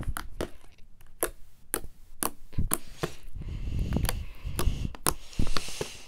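Sticky slime being worked by hand, giving irregular sharp clicks and pops about twice a second, with a softer squishing rustle in the middle.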